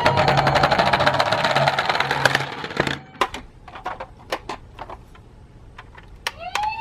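Small toy car's motor and gears whirring with a fast clicking rattle for about three seconds, then scattered clicks, and a tone rising in pitch near the end.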